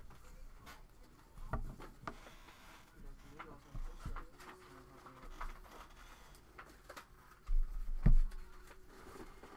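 Hands handling trading cards and packaging on a tabletop: scattered light taps and rustles, with a couple of louder thumps about eight seconds in.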